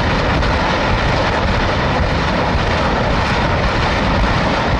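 Truck-mounted multiple rocket launchers firing a salvo: the continuous, steady roar of rockets leaving the launch tubes.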